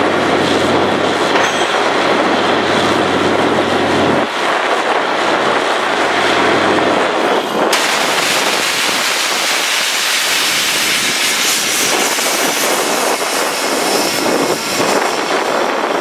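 Borewell drilling rig running as it drills: a loud continuous rush of compressed air flushing water and rock cuttings up out of the bore over the machinery noise. A low engine hum under it drops out about four seconds in, and the air hiss turns brighter about eight seconds in.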